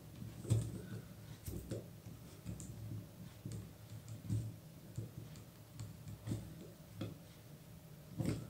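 Irregular plastic clicks and small knocks from a budget tripod's plastic head as it is turned and adjusted by hand, stiff to turn at first, over a faint steady low hum.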